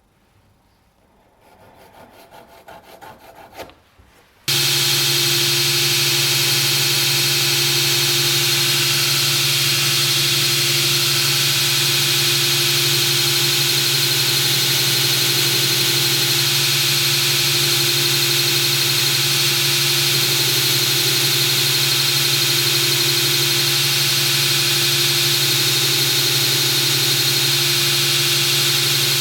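Quiet shop handling with a sharp click, then, about four seconds in, a workshop machine cuts in abruptly and runs at a constant, loud, unchanging pitch: a low hum under a strong high hiss.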